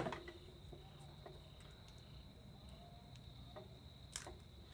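Faint clicks and light knocks of metal hose fittings being handled, over a steady faint high-pitched whine.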